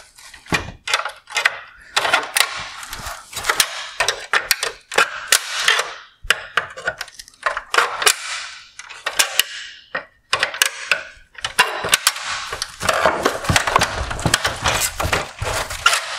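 Flathead screwdriver prying the black plastic bezel off the chrome trim of a 2019 Mercedes-Benz C-Class LED headlight: plastic scraping and creaking, with many sharp snaps and clicks as the clips let go, busiest near the end.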